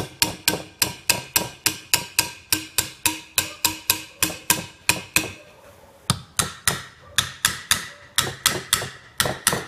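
Small hammer tapping the valve ends on a Kia Picanto cylinder head, one valve after another, in a quick even run of sharp strikes at about three a second with a short break a little past halfway. The tapping checks that the freshly refitted valve keepers are seated: a badly seated one would pop out, and none does.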